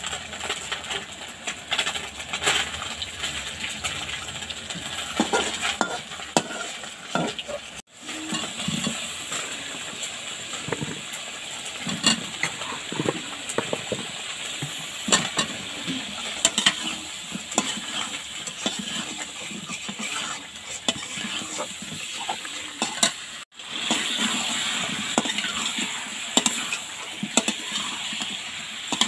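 Oil sizzling in a steel frying pan, first around pieces of hilsa fish and then around chunks of wax gourd, while a metal spatula stirs, with frequent clicks and scrapes of metal on the pan. The sound breaks off for an instant twice.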